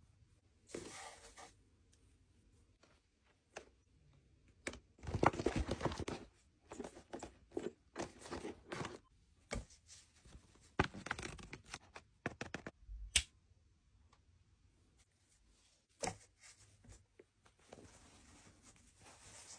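Hands unboxing a Fluffie Stuffiez surprise toy, making short, irregular bursts of tearing and crinkling as the fluff and wrapping are pulled away. The loudest stretches come about five seconds in and again near the middle.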